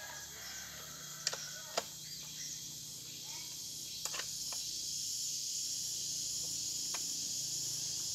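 Steady high-pitched insect chorus, growing a little louder midway, with a few sharp clicks from hands working the controls of a Stihl 070 chainsaw whose engine is not running.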